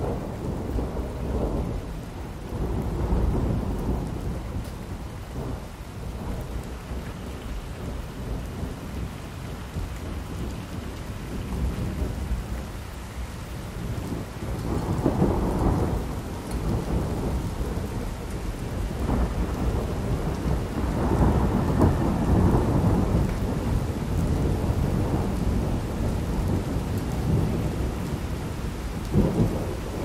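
Thunderstorm: rolls of thunder rumbling again and again over steady rain, the longest and loudest rolls coming about halfway through and in the last third.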